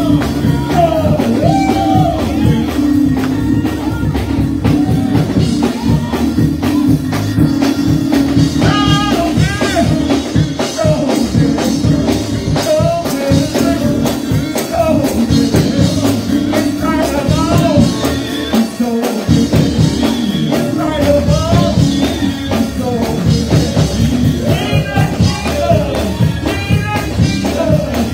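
Live gospel praise music: voices singing over a band with a drum kit keeping a steady beat.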